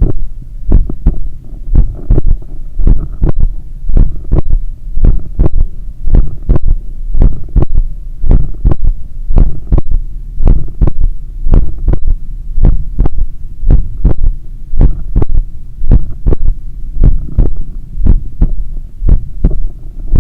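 Loud human heartbeat heard through a stethoscope pressed at the cardiac apex, in a steady, fairly quick rhythm of low thuds while the heart recovers from an 8 km run. Each beat carries an extra third heart sound (S3) after the usual pair, giving a galloping triple rhythm.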